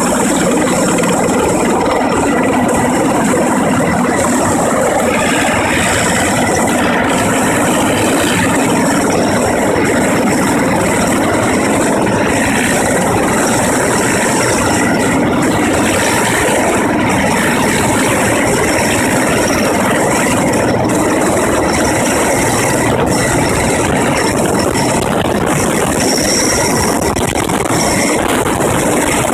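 Erickson S-64 Skycrane heavy-lift helicopter hovering close by, its twin turbine engines and rotor making a loud, steady din.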